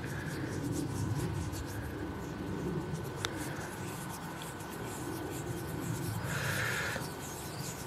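Thumb and fingers rubbing soil off a 1944 silver shilling: a soft, scratchy rubbing of skin and grit on the coin, with a single sharp click about three seconds in.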